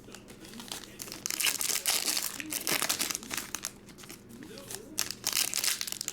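Plastic trading-card pack wrappers crinkling and tearing as packs are ripped open by hand, in irregular crackling spells about a second in and again near the end.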